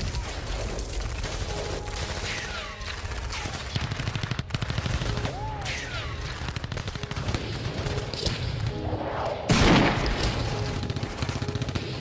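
Battle sound effects: dense, rapid gunfire and machine-gun fire with a few falling whistles, and a loud blast about nine and a half seconds in.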